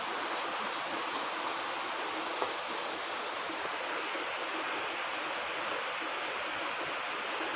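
Steady rushing of a flowing stream, an even wash of water noise with one faint tick a couple of seconds in.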